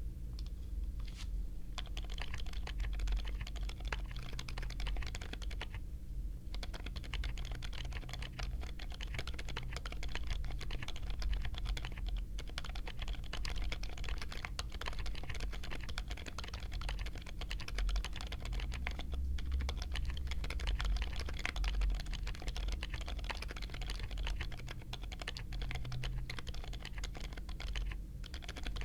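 Mechanical keyboard fitted with tactile or silent switches being typed on quickly and without a break, fast overlapping keystrokes with a short pause about six seconds in.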